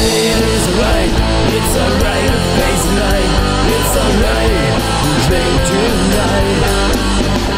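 Loud rock music with electric guitar, with no vocals.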